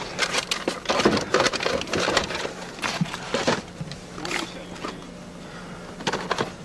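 Hands rummaging through a cluttered cabinet shelf: irregular knocks, clatter and rustling as cassette tape cases, small boxes and a paper bag are moved about, over a steady low hum.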